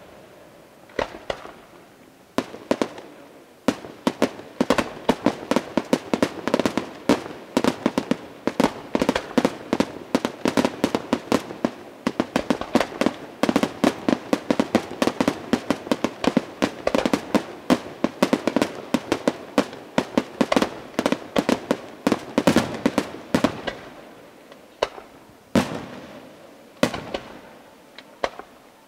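Aerial fireworks display: shells bursting in a dense, rapid barrage of sharp bangs and cracks, many each second. It starts with a few scattered reports, builds after a few seconds and thins out to occasional bangs near the end.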